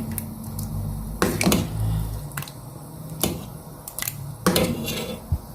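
Utensil knocking and clinking against a cooking pan as spaghetti sauce is stirred: a handful of separate, irregular knocks and clicks.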